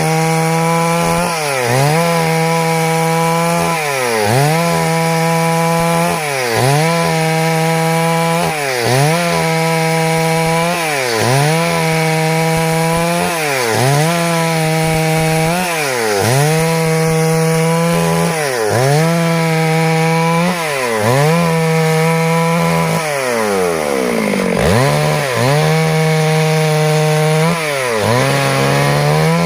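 Stihl MS 382 two-stroke chainsaw cutting wood. Its engine speed drops under load and climbs back about every two seconds, with one longer, deeper drop near the end.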